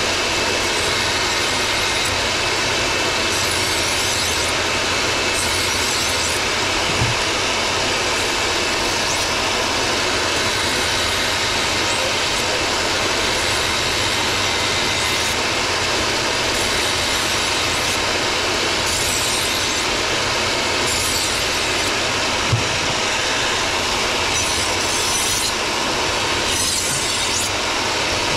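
Steady, loud roar of commercial kitchen equipment, with faint high whines. Two dull thumps cut through it, one about seven seconds in and one about twenty-two seconds in.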